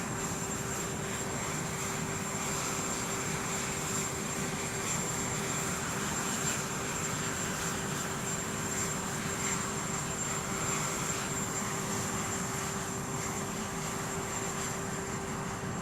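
Aircraft engines running steadily: an even rushing noise with a constant high whine over a low hum.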